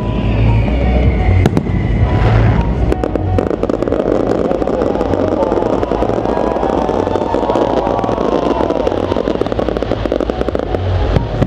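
Fireworks display going off: repeated deep booms, and from a few seconds in, a dense crackle of many small bursts.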